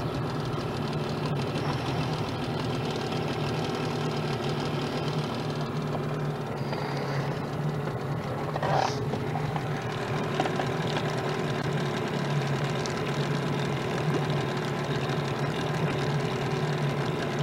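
Outboard motor running steadily, an even low hum with no change in speed.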